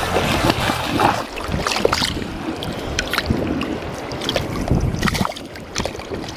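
Mountain stream water rushing, with scattered splashes and knocks and wind buffeting the microphone.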